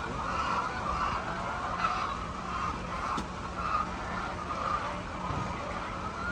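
A flock of hens in a coop calling and clucking over one another, with drawn-out wavering calls.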